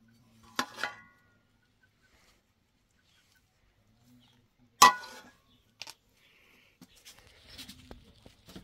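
Large metal serving spoon striking metal cookware while rice is dished out: two ringing clanks, about half a second in and a louder one near five seconds in, then light clatter near the end.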